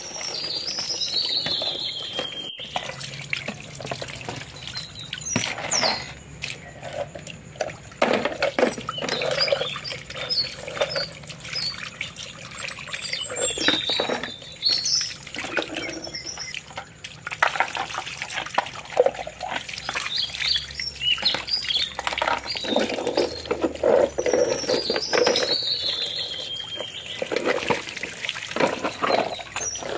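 Water from a hose running and splashing over plastic toy vehicles as they are rinsed of mud, with knocks of the plastic toys being handled. Birds chirp in the background, with a falling run of chirps near the start and again near the end.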